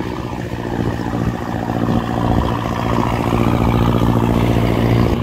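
Motor boat engine running steadily, a low hum, with the wash of water.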